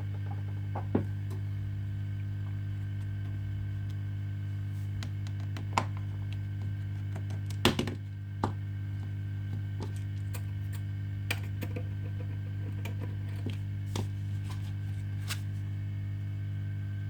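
Scattered small clicks and taps of tools working on a Samsung Galaxy S7 Edge smartphone during disassembly, with a short cluster of louder clicks a little before halfway. A steady low electrical hum runs underneath.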